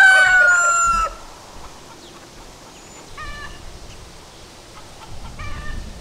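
Rooster crowing, its long held final note sliding slightly down and ending about a second in; two shorter calls follow, around three and five and a half seconds in.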